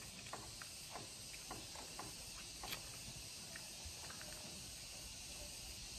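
Faint wet mouth sounds of biting into and eating ripe mango flesh off the peel: small irregular clicks and smacks over a steady high hiss.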